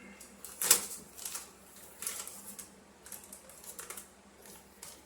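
Paper crackling and rustling in several short, irregular crackles, the loudest about a second in, as an instruction manual is handled and its pages turned. A fan hums steadily underneath.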